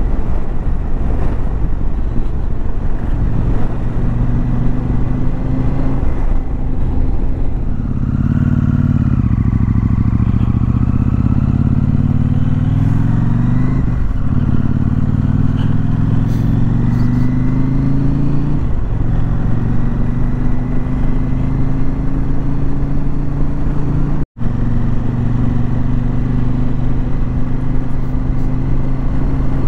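KTM 790 Adventure R's parallel-twin engine under way on the road, with a rush of wind. The engine note climbs in the middle through two gear changes, then settles into a steady cruise. The sound cuts out for a split second about two-thirds of the way through.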